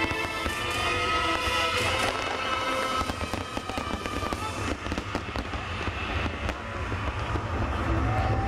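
Aerial firework shells bursting in quick succession, a dense run of bangs and crackles, with music playing.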